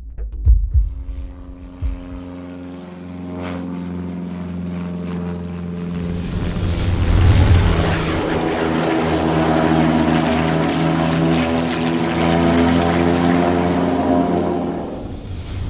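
Aircraft engine sound effect that builds up and holds at a loud, steady run, made of layered steady tones under a rushing hiss, then cuts off shortly before the end.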